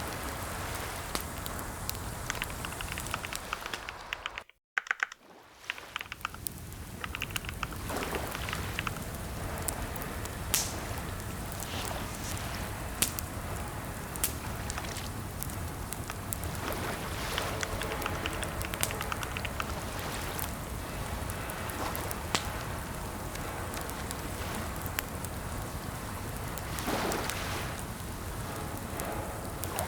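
Computer keyboard typing: irregular key clicks over a steady hiss. The sound cuts out briefly about four and a half seconds in.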